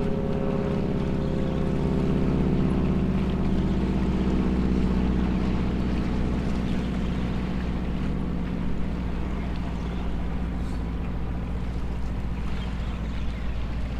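A motorboat's engine running steadily, its low drone sliding slightly down in pitch over the first several seconds and thinning out later on.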